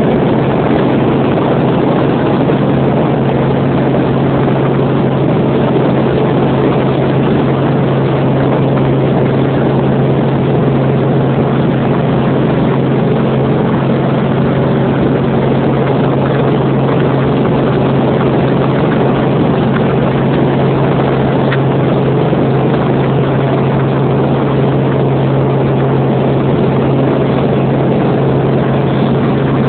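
Helicopter engine and rotor noise: a loud, steady drone with a strong constant low hum.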